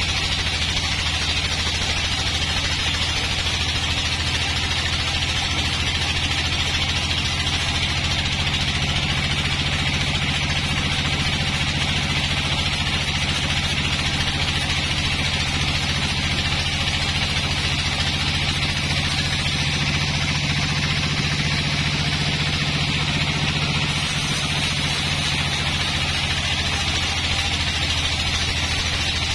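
Sawmill band saw running steadily as its blade rips lengthwise through a long dry, rotten log, a low motor hum under a continuous sawing hiss.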